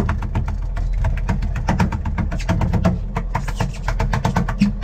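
Rapid, irregular knocking, many knocks a second, over the steady low drone of a boat's engine.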